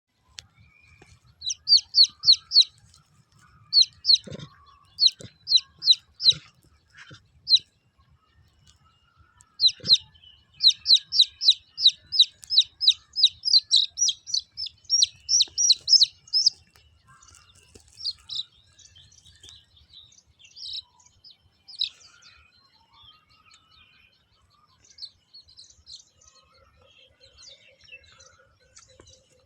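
High, sharp chirping calls from an animal, in quick runs of four or five and then a longer unbroken series, fading to softer scattered chirps near the end. A few low knocks sound in the first third.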